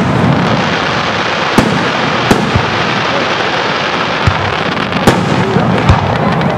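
Fireworks display: about five sharp bangs of bursting shells, irregularly spaced, over a dense continuous rush of noise.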